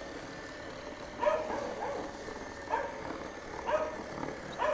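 A dog barking about five times, roughly a second apart.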